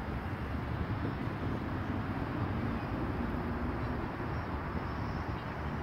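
Steady low rumble of outdoor ambient noise, with wind buffeting the microphone.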